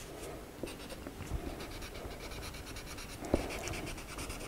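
Black crayon scratching on paper in short, repeated strokes as tiger stripes are drawn, with one sharp tap about three seconds in.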